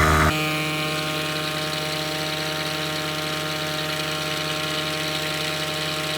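A Pittsburgh 150 PSI portable air compressor running, then cutting off suddenly about a third of a second in, its tire inflation done at about 100 psi. The food truck's engine keeps idling steadily underneath.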